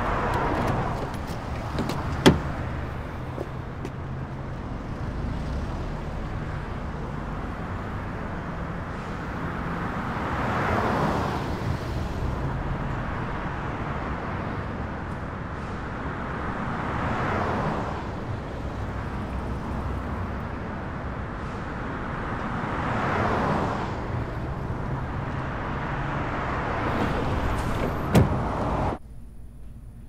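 Street traffic: cars passing every five or six seconds over a steady low rumble, with a sharp knock a couple of seconds in and another near the end. Just before the end it drops to quiet room tone.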